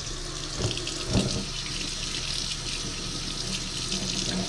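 Kitchen tap running steadily into a stainless steel sink, the water splashing over a fish held in the stream as it is rinsed.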